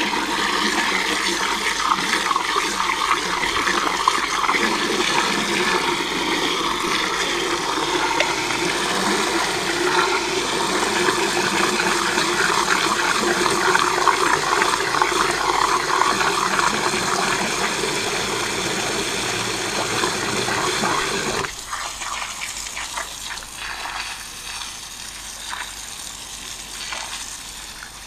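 Water from a garden hose splashing loudly into a metal bucket as it fills. About three-quarters of the way through it drops suddenly to a quieter, uneven wash as the stream is turned onto the concrete floor.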